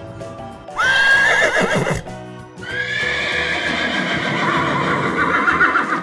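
Horse neighing twice: a short whinny about a second in, then a longer one of about three seconds that quavers toward its end.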